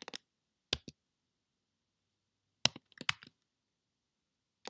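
A few scattered keystrokes on a computer keyboard: single clicks near the start and just under a second in, then a quick run of three or four about three seconds in.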